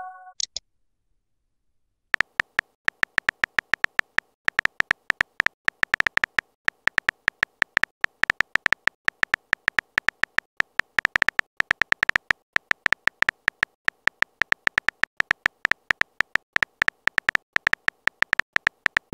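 Simulated phone-keyboard typing sounds: a rapid, uneven run of short identical key-tap clicks, one per letter as a text message is typed out, starting about two seconds in.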